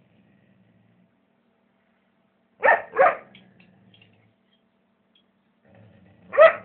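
Irish setter puppy barking: two quick barks a little under three seconds in, then another pair of barks near the end.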